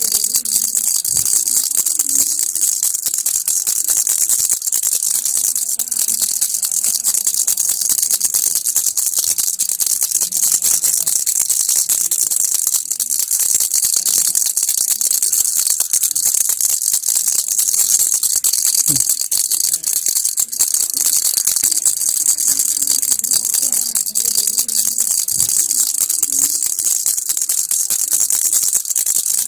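Baby's toy rattle shaken without a break, a dense, steady, bright rattling of small beads.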